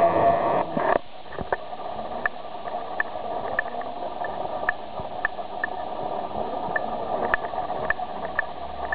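Steady room noise picked up by a small camera microphone, after a louder voice-like stretch cuts off about a second in. Short faint clicks come irregularly, about once or twice a second.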